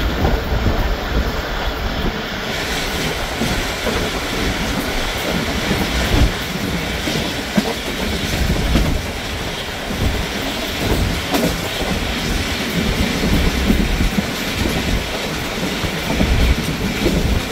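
Moving train heard from aboard: a steady rumble of wheels on the rails, with occasional sharp clacks over the rail joints.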